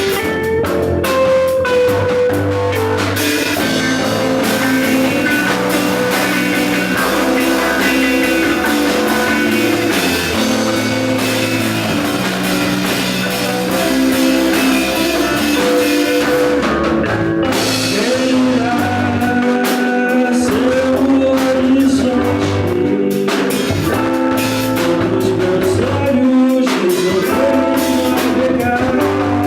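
Rock band playing live, with electric guitar, bass and drum kit under a sung vocal line.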